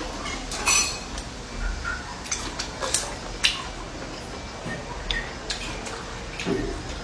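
Bowls and eating utensils clinking and tapping during a meal: scattered light, irregular clicks.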